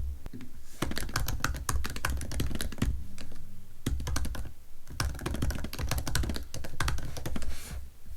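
Fast typing on a computer keyboard: rapid runs of key clicks with a short pause partway through.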